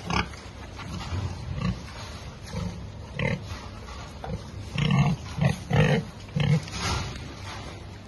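Domestic pigs grunting: a run of short grunts, coming faster and louder about five seconds in.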